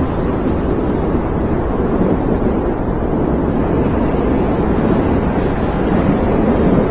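Deep, steady rumbling of a nuclear explosion and its blast wind, growing slightly louder near the end.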